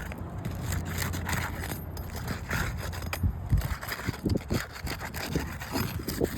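Irregular scraping and rubbing of a roofing tool being worked under asphalt shingles to break their seal for a repair.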